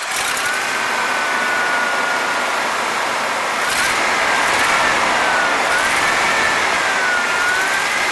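1996 Ford F150's straight-six engine idling just after starting, with a steady high whine that wavers in pitch. It is still missing on one cylinder, which the owner traces to a clogged fuel injector.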